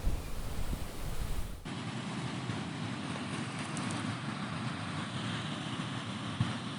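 Pacific Ocean surf washing in steadily, with wind buffeting the microphone. Just under two seconds in, the sound changes abruptly and turns heavier and lower.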